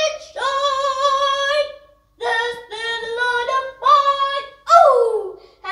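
Singing in a high female voice, in long held notes with a slight waver, pausing about two seconds in and sliding down in pitch near the end.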